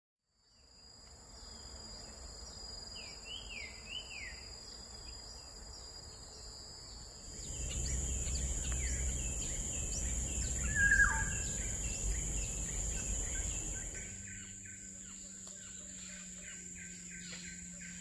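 Tropical forest ambience: a steady high-pitched insect drone with scattered bird chirps and whistled calls, and one louder falling call about eleven seconds in. A low rumble rises between about seven and fourteen seconds.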